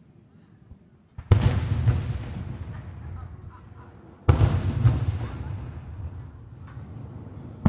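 Aerial fireworks shells bursting: two big booms about three seconds apart, each trailing off in a long rumbling echo, with a few smaller pops and a third boom at the very end.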